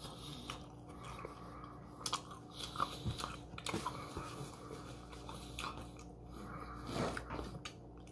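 A person chewing a mouthful of food close to the microphone, with soft crunches and small scattered mouth clicks, a slightly louder one about seven seconds in.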